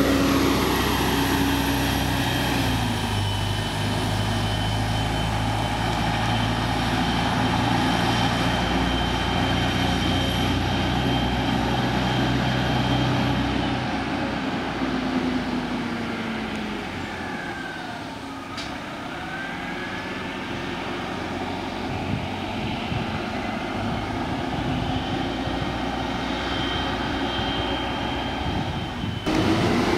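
SEPTA Neoplan AN460 articulated bus's Detroit Diesel Series 50 engine pulling away, its pitch stepping down once early on as the Allison automatic transmission shifts, then fading into the distance. A vehicle swishes past midway, and the sound of traffic builds again near the end.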